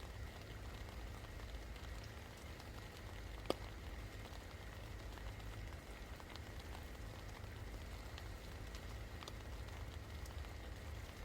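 Rain falling steadily, a fine patter of drops over a low rumble. About three and a half seconds in, one louder sharp drip stands out.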